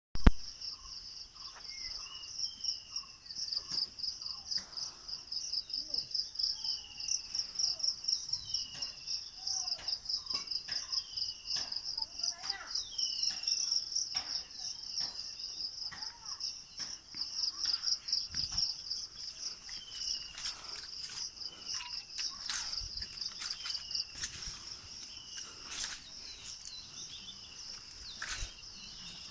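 A steady, pulsing insect chorus, with a bird giving short downward-sliding whistled calls every second or two. Scattered sharp clicks and knocks come in, more often in the second half.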